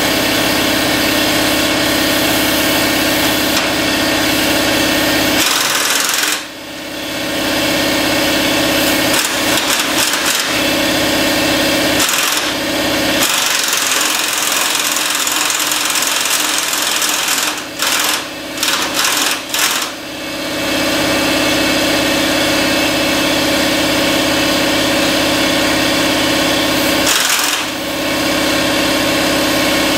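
Pneumatic impact wrench running in long runs on a mower deck spindle's pulley nut, to loosen it and take the spindle off. It stops briefly about 6 and 12 seconds in, starts and stops quickly a few times around 18 to 20 seconds, and pauses again near the end.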